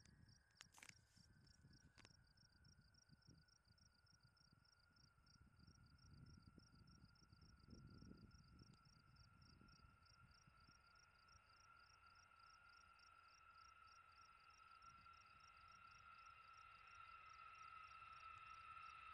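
Faint: a high, steady jet whine from a B-52H bomber's eight turbofan engines on landing approach, growing louder toward the end as the aircraft nears. Under it, insects chirp in quick, even pulses, about three a second, with a low wind rumble.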